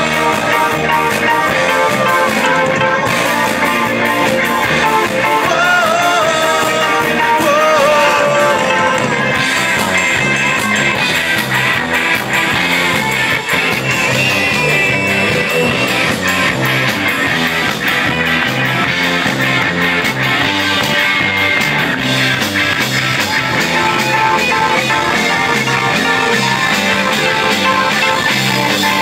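Live rock band playing loud, with electric guitars, keyboard and drums keeping a steady beat, and a voice singing a melody over the first several seconds.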